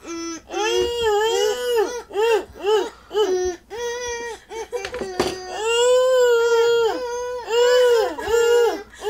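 Young children tooting and humming through long drinking straws played like toy saxophones, a buzzy, crying-like tone. A run of short notes that bend up and down gives way to longer held notes from about halfway through.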